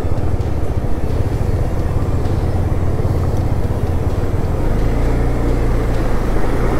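Motorcycle engine running steadily through a deep water crossing of glacier meltwater, with a rushing noise of water and wind over it. The engine note shifts a little past halfway.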